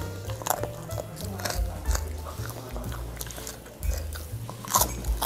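Mouth sounds of biting and chewing a spicy beef tendon meatball (bakso urat), with a few short sharp clicks, over background music with a stepped bass line.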